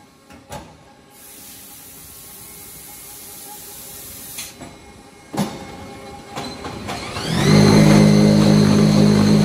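Brick-pressing machine running, with a steady hiss and a few sharp knocks as pallets of freshly pressed unfired bricks move out. About seven seconds in, loud electronic music starts and covers it.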